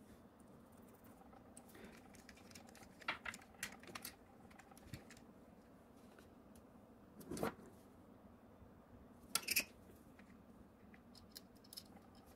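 Faint, scattered clicks and taps of small screws and a precision screwdriver being handled against the metal housing of a 3D printer module, with a duller knock about seven seconds in and a sharp double click shortly after.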